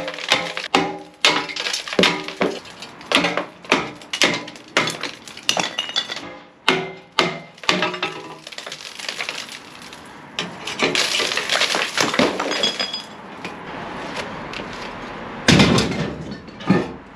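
Hammer striking an old cast iron soil pipe, sharp ringing blows about two a second, breaking the brittle cast iron off piece by piece. The strikes give way to a rougher clattering stretch, then a single loud thump near the end.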